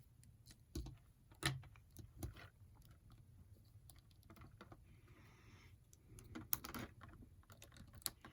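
Scattered small plastic clicks and taps, a few louder ones spread through, with a faint rustle near the middle: an articulated action figure and its parts being handled.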